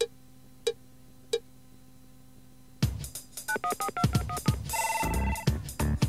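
Three short cue beats about two-thirds of a second apart over faint tape hum, the count-in that tells the user when to start recording. About three seconds in, an electronic instrumental backing track starts, with drum hits and quick stepping tones like touch-tone phone dialing.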